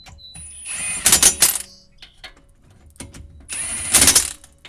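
Milwaukee M18 cordless impact gun running in two short bursts, each about a second long and starting with a high whine, with small clicks between them. It is drawing the four bolts of a new Prius rear wheel bearing hub in gently, in a crisscross pattern, before the final tightening.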